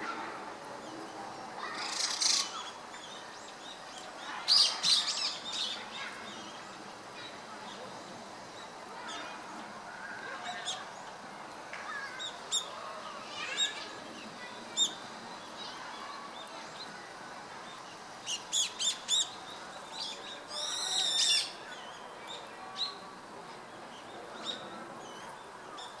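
Wild birds calling in short, scattered chirps and calls, with a quick run of four notes about two-thirds of the way through, followed by a longer, louder call.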